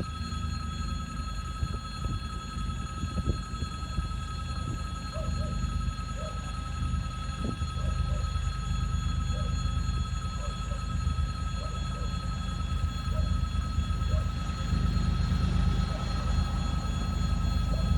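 2TE116UD twin-section diesel locomotive running: a low engine rumble with a steady high whine over it, growing louder toward the end.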